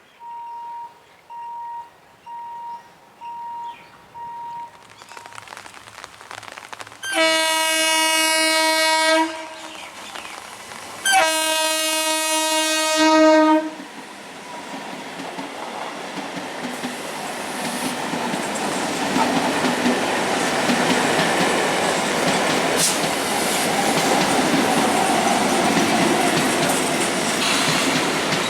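Five short single-pitch warning beeps, then a train's horn sounds two long, loud blasts. After the horn a train runs past with the clickety-clack of wheels over rail joints, growing louder.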